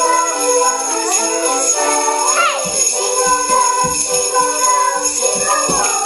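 Many handheld sleigh bells shaken together by a group of children, a continuous bright jingling, over music with held notes.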